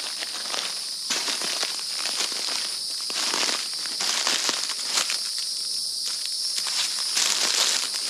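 Footsteps crunching irregularly through dry leaves and brush, over a steady high-pitched drone of insects.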